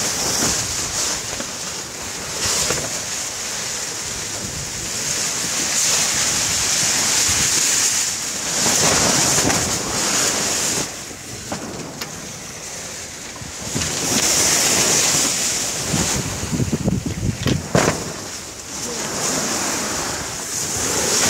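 Sea rushing and hissing along the hull of a sailing yacht moving through a choppy sea, swelling and easing every few seconds. Wind buffets the microphone in gusts.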